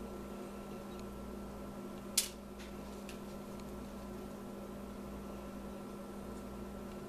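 A steady low hum, with one sharp click about two seconds in and a few fainter clicks: a metal spoon tapping a stainless steel saucepan while scooping thick no-bake cookie mixture onto wax paper.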